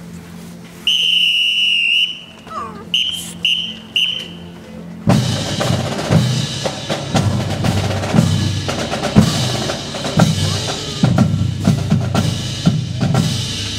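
A drum major's whistle gives one long blast and then four short ones, the signal for the band to step off. About five seconds in the marching band's drumline comes in with a loud, driving street cadence on snare and bass drums.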